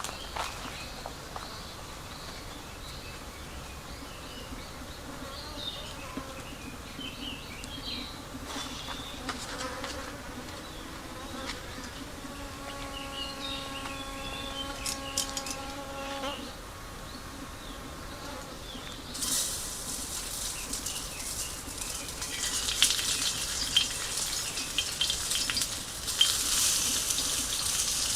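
An insect buzzing close by, a steady hum with a wavering pitch, for the first half or so. About two-thirds in, food starts sizzling in an iron frying pan over a campfire, getting louder toward the end.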